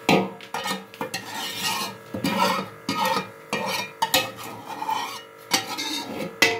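A spoon scraping and knocking against a metal cooking pot as thick chicken gravy is spread over a layer of rice, with several sharp knocks among irregular scraping and squelching strokes.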